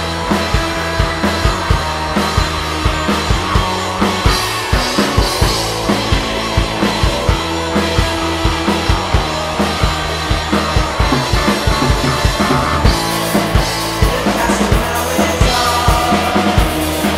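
Psychedelic punk rock from a full band, with the drum kit keeping a steady beat of about two hits a second over sustained low bass notes. The cymbals grow brighter about three-quarters of the way through.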